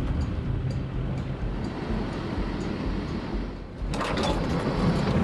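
Steady low rumble and water noise of a sailing yacht underway. It changes abruptly about four seconds in to louder, rushing wind and water noise.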